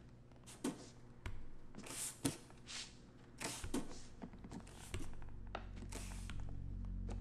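Slow, separate taps and soft thuds of a walking cane's rubber tip and footsteps on carpeted stairs, with soft rustling between them. A low music drone swells in from about five seconds in.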